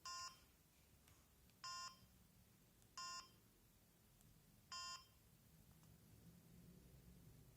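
Samsung SGH-M600 mobile phone's keypad tone: four short, identical beeps about one to two seconds apart, each one a key press while the phone's menu is browsed.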